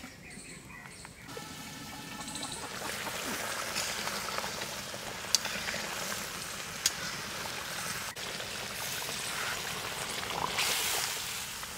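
Water pouring and trickling in a steady hiss, with two sharp clicks about a second and a half apart midway through.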